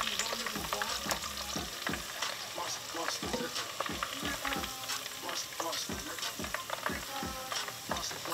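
Breaded squid pieces sizzling as they deep-fry in hot peanut oil, with repeated irregular clicks and scrapes of a metal slotted utensil against the pot as the pieces are stirred and lifted out.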